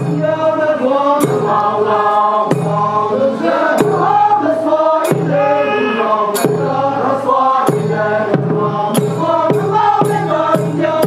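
Music: a group singing together in a chant-like song over a steady beat that falls a little more than once a second.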